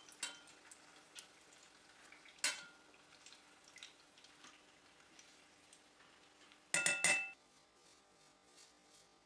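A metal spoon clinks against a stainless steel saucepan as fried shrimp are lifted out of the oil, over a faint sizzle of frying. There is a single clink about a quarter second in and another about two and a half seconds in. A quick rattle of ringing metal clinks about seven seconds in is the loudest sound.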